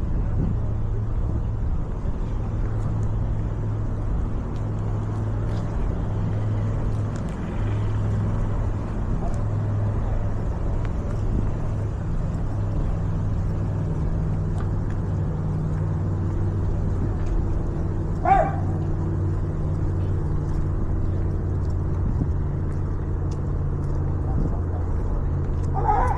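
Steady engine drone with a low hum throughout, and one short bark-like call about two-thirds of the way through.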